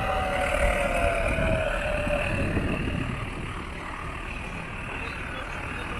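Road traffic: a large motor vehicle going past with a low engine and tyre rumble that eases off about halfway through. A steady mid-pitched tone fades out in the first couple of seconds.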